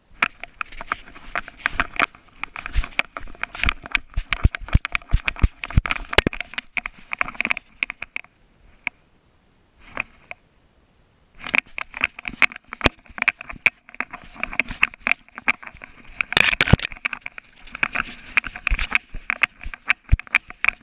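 Rapid, irregular clicking and rattling from a GoPro mounted on a dog's collar, jostled as the dog moves through snow. It goes almost quiet for about three seconds near the middle, then starts again.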